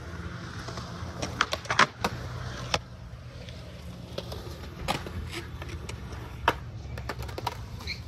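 Skateboards on concrete: a steady low rumble of wheels rolling, with sharp clacks of boards hitting the ground. The clacks come in a quick run between about one and three seconds in, then singly a couple of times later.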